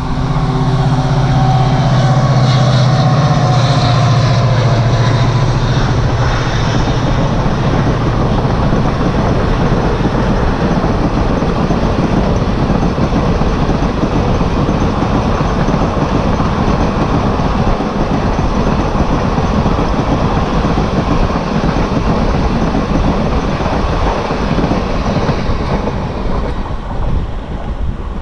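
An ALCO diesel locomotive passing at speed, its engine loud for the first several seconds and then dying away, followed by a long rake of passenger coaches clattering over the rail joints, fading near the end as the tail recedes.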